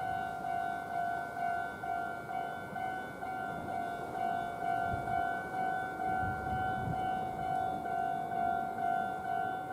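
Japanese railway level-crossing warning bell ringing its steady, even 'kan-kan' alarm, a little under two strikes a second, with a few low thuds about five to seven seconds in.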